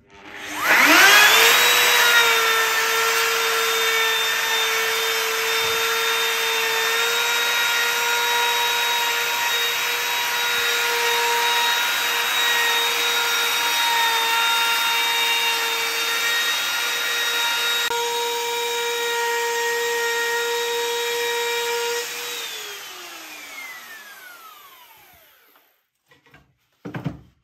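Handheld electric router with a round-over bit spinning up to a steady high whine and cutting along the edge of a wooden board. It is switched off near the end and winds down, its pitch falling.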